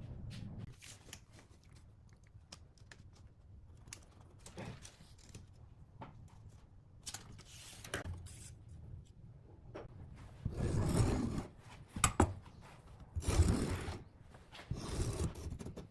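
Hand tools handled on a pine board on a wooden workbench: small clicks and taps, then about ten seconds in three louder scraping strokes, like a steel rule and pencil sliding across the wood, with a sharp click between the first two.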